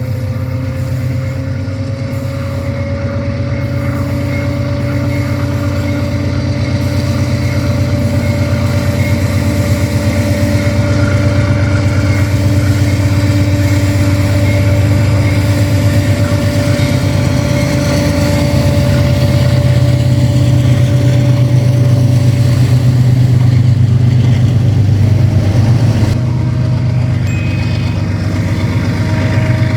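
GE AC44i and ES44ACi diesel-electric locomotives in multiple unit, holding a loaded train on a downgrade with dynamic brakes working hard: a deep, steady engine drone with a high, held singing tone from the rails above it. The sound grows louder over the first two-thirds and dips briefly near the end.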